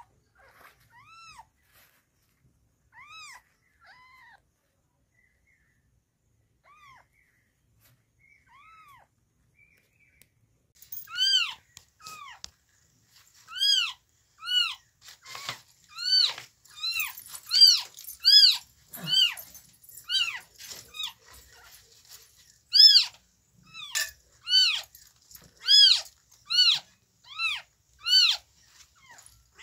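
Newborn kitten mewing: short, high-pitched cries, faint and scattered at first, then loud and insistent from about a third of the way in, coming about once or twice a second.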